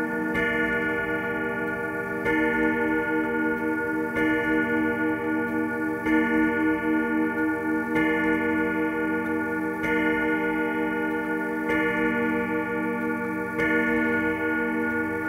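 Steel chime rods of a 1981 Howard Miller grandfather clock being struck by the hammers, one stroke about every two seconds, each stroke left ringing into the next, about eight in all. The slow, even count is typical of the clock striking the hour after its chime tune.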